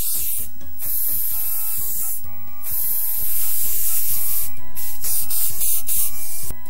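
A loud hissing spray sound effect, broken by short gaps, over cartoon background music with a steady beat. The spray gets a little louder about three seconds in.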